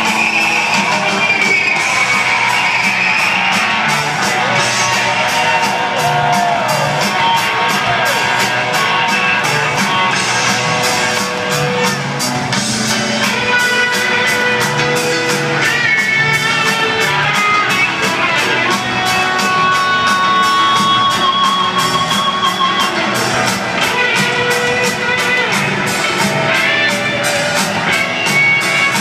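Rock band playing live in a large arena, with an electric guitar lead gliding over bass and steady drums, loud and reverberant as heard from the audience.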